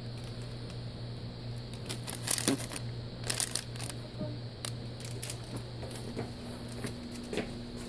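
A steady low electrical hum, with several short crinkling, rustling handling noises, mostly about two to four seconds in.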